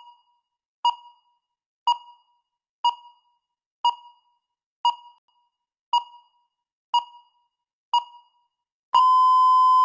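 Electronic countdown-timer beeps, one short beep each second as the last seconds of speaking time run down, then a long steady beep about nine seconds in that signals time is up.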